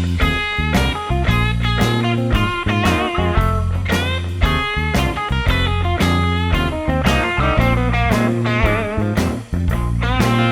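Background music: a blues-rock track led by electric guitar, with bass and a steady drum beat.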